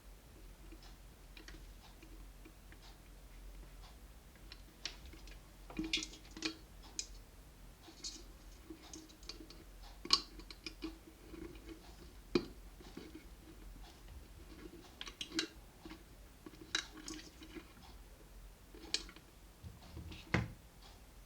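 Scattered light clicks and taps of small objects being handled, irregular and coming in clusters, the loudest knocks about ten seconds in and near the end, over a faint low hum.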